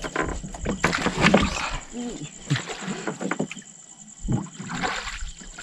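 Water splashing and sloshing around people working in a river, loudest in the first second and a half and again near the end, with brief voices.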